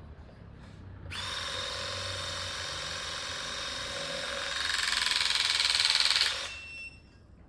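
Battery-powered hydraulic cable tool with cutter jaws: its motor and pump run with a steady whine for about five seconds while the cutter head closes on a cable. The whine grows louder about four seconds in, as the blades cut through, then stops.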